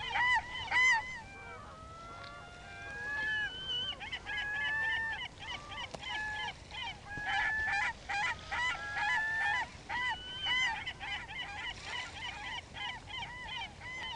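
Several seagulls squawking over one another in a rapid jumble of short calls. Between about 1.5 and 5 seconds in, longer drawn-out calls take over before the short squawks return.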